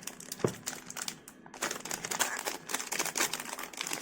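Crinkling and crackling of plastic packaging being handled and pulled open by hand, with a sharper knock about half a second in.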